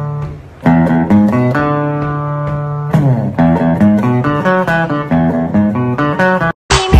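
Music: a plucked guitar melody of single notes that ring and fade, with a strummed chord about three seconds in. It breaks off abruptly near the end, and a louder, different track starts.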